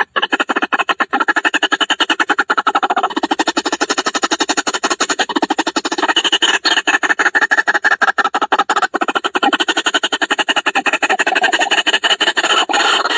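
White-breasted waterhen calling on a lure recording: a fast, unbroken stutter of harsh notes, about ten a second.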